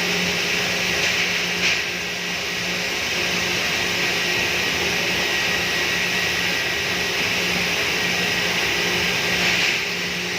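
A steady mechanical whir: a constant hiss over a low, even hum, with a brief small bump about two seconds in.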